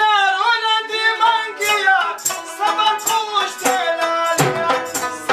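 Pashto folk singing: a voice sings a wavering melody over held harmonium chords, with hand-drum strokes that come in heavily about four seconds in.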